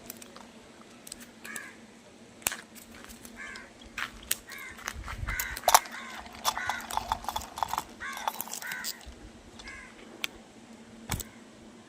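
A bird calling over and over in short arched calls, thickest in the middle of the stretch, with scattered sharp clicks and knocks and a faint steady hum underneath.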